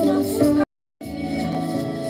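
Music for a Viennese waltz, with held notes changing in steps. It cuts out to silence for about a third of a second, about two-thirds of a second in, then resumes.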